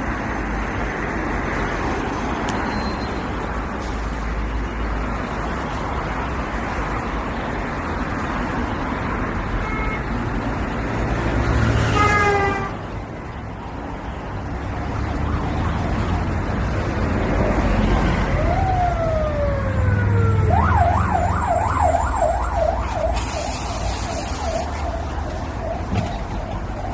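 Ambulance siren sounding outside a city bus, heard from inside the bus over its engine and road noise. The siren glides in long sweeps, switches to a fast warbling yelp about three-quarters through, then holds a steadier tone.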